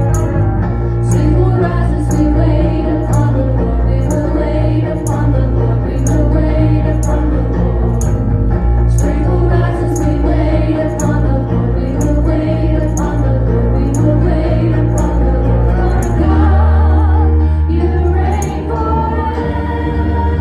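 Live worship band playing a song: electric guitar and keyboard over a deep bass line and a steady ticking beat about twice a second, with women's voices singing. About 16 seconds in the bass drops to a lower held note.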